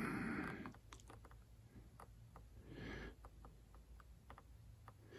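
Spektrum NX8 transmitter's scroll wheel clicking faintly and irregularly as it is rolled to set the rate and expo values.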